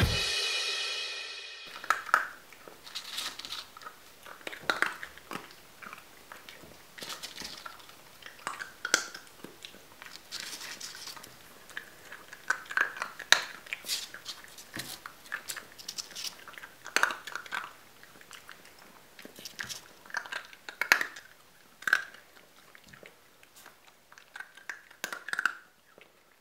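Music fades out in the first two seconds. Then dry kibble is crunched and chewed in irregular clusters of sharp crunches, with short pauses between bites.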